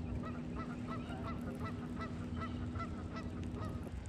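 A bird honking in a quick run of about a dozen short calls, roughly three a second, over a steady low hum that stops near the end.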